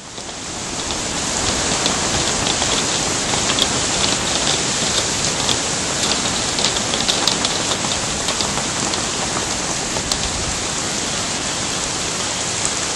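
Tropical-storm rain pouring down steadily on garden foliage and ground, with scattered ticks of drops close by. It fades in over the first second or so.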